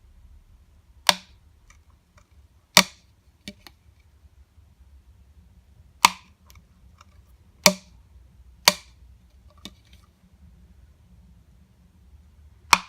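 Hand hole reamer punching air holes through a plastic enclosure: six sharp cracking snaps a second to a few seconds apart, with a few fainter clicks between them.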